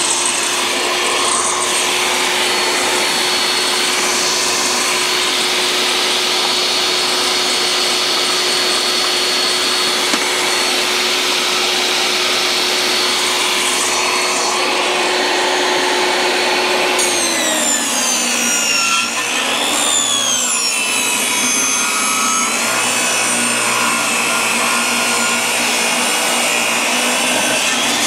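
Portable jobsite table saw running steadily at full speed. About two-thirds of the way in, the blade bites into a board and the motor's pitch drops and wavers under the load of the rip cut, picking up again near the end.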